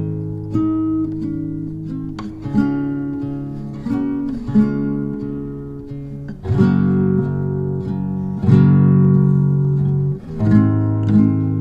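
Background music: acoustic guitar strumming chords that change every couple of seconds.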